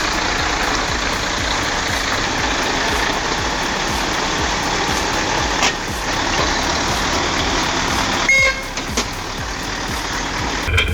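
Heavily loaded Mercedes-Benz Actros logging truck running and straining through deep mud, a steady noisy rush, with a brief change in the sound about eight seconds in.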